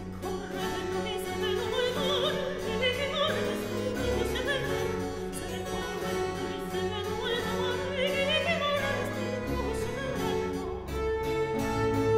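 Soprano singing a Baroque aria with vibrato, accompanied by harpsichord, violins, cello and double bass. The voice drops out near the end, leaving the instruments playing on.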